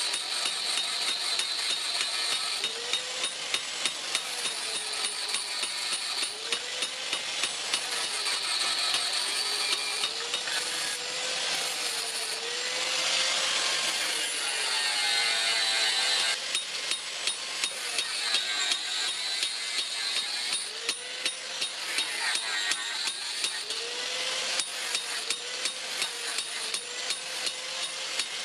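A hand-worked mechanism clicking rapidly like a ratchet, with a tone that rises and falls in a slow repeating rhythm of about one swell every second and a half, typical of workshop machinery being cranked.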